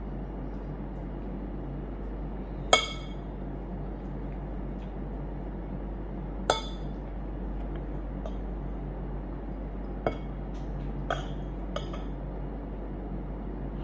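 Metal spoon and fork clinking against a bowl while eating: five separate sharp clinks, the first, about three seconds in, the loudest, the last three close together near the end, over a steady low hum.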